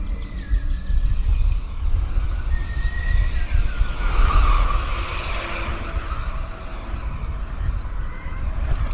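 Wind rumble on the microphone over road noise, with a passing vehicle swelling up and fading about four to six seconds in.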